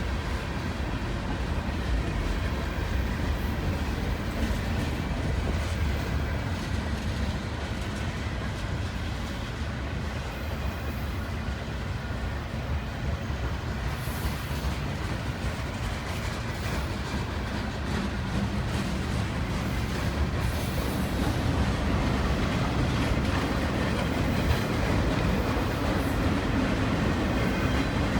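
A long Union Pacific manifest freight train rolling past. The wheels rumble and clatter steadily on the rails, a little louder near the end.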